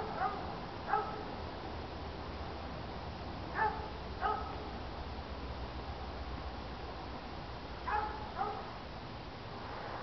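A dog barking: seven short barks in three bunches, three within the first second, two around four seconds in, and two around eight seconds in.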